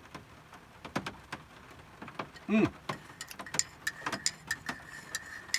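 Irregular light taps and clicks of rain dripping on a van roof, with one short voice-like sound about two and a half seconds in. A faint steady high whine comes in past the halfway mark.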